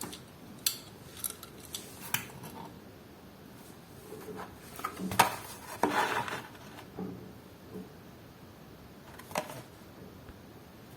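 Small hard objects clicking and clattering, typical of hands handling plastic packaging and die-cast toy cars: scattered sharp clicks, with a busier burst of clatter about five to six seconds in.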